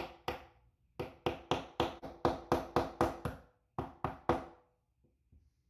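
A plastic-faced hammer tapping the extractor retaining pin into a Desert Eagle bolt: a run of sharp taps, about four a second, in three groups, each with a brief metallic ring. Two faint taps follow near the end.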